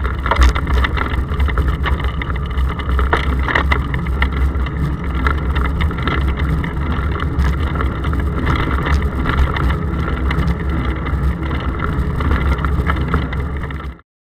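Bicycle riding along a road, picked up by an action camera in its case on the handlebars: a steady low rumble of road vibration and wind with scattered clicks and rattles, cutting off suddenly near the end.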